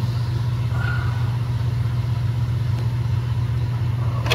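A steady low hum from running machinery, even in level throughout.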